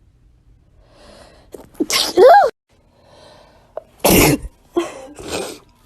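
Human sneezes in quick succession. There is a breathy intake, then a loud sneeze about two seconds in, ending in a voiced 'choo' that rises and falls in pitch. Another sharp sneeze comes about four seconds in, with a smaller one near the end.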